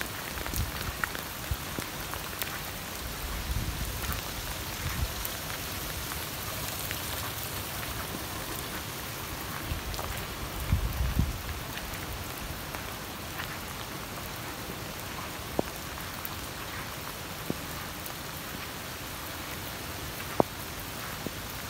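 Steady rain falling, an even hiss with scattered drop ticks, and a few brief low rumbles.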